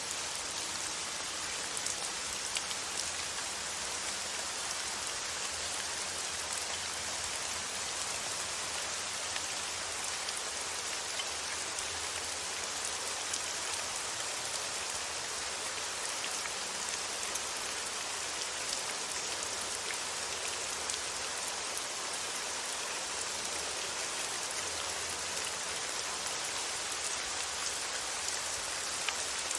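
Steady rain falling on a surface, an even hiss with faint scattered drop ticks, used as relaxing white noise.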